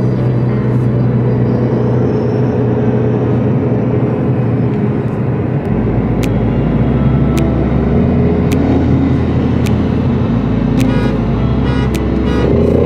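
Car driving at steady cruising speed, heard from inside the cabin: continuous engine drone and road noise.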